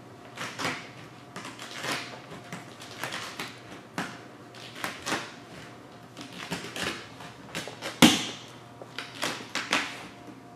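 Hard felt-edged application card swiping vinyl wrap film down onto a car hood while the loose vinyl sheet crinkles as it is lifted and stretched: irregular scrapes and rustles, with one sharper, louder crackle about eight seconds in.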